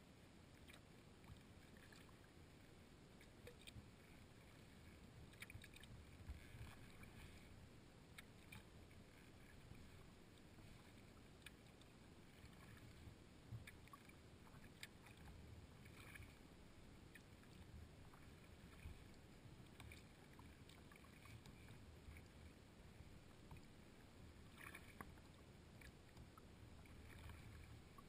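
Faint water lapping and slapping against a kayak hull while under way: small irregular splashes over a low steady rumble.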